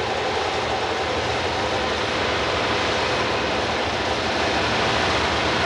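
Mammoet self-propelled modular platform trailer running as it manoeuvres on its hydraulically steered wheel sets: a steady mechanical drone from its engine unit and hydraulics, with a faint whine.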